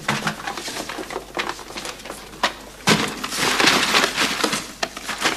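Rummaging through a cardboard box of rubber plugs: a run of short knocks, rattles and crinkling, busiest about three seconds in.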